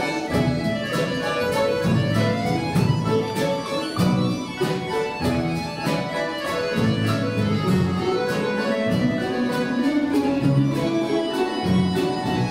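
An orchestra of Russian folk instruments, mainly plucked domras and balalaikas, playing a folk song arrangement at a steady beat.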